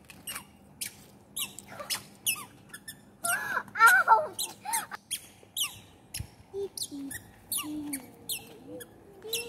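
Toddler's squeaky sandals giving a short, high squeak with each step, about two a second as the child walks. About three seconds in, a child's high, wavering voice is briefly louder than the squeaks.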